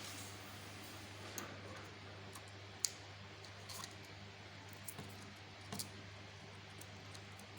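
Scattered small clicks and handling sounds of plastic wiring-harness plugs being pushed into the sockets of a refrigerator's inverter control board, with one sharper click about three seconds in. A steady low hum runs underneath.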